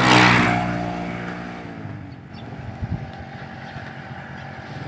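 A motor vehicle passing close by on the road, loudest at the start and fading away over about two seconds with a slight drop in pitch.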